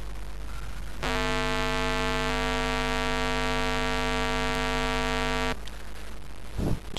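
A steady buzzing tone at one held pitch, rich in overtones, starts about a second in and cuts off abruptly some four and a half seconds later, over a low hum.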